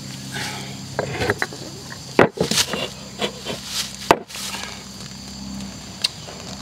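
Knocks and clatter of a stone mortar and other ingredients being handled and set down on a rough wooden table, the loudest two knocks about two and four seconds in. A steady insect buzz runs behind.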